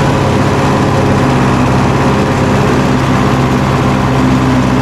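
Tractor diesel engine running steadily under load while pulling a chisel plow through a field.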